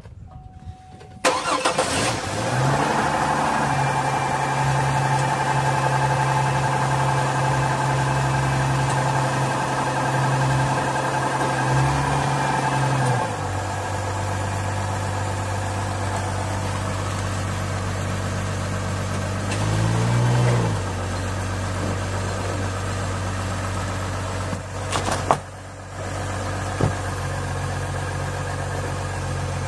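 An engine starting about a second in and then idling steadily. Its idle drops to a lower pitch about halfway through, and there is a brief rev about two-thirds of the way in.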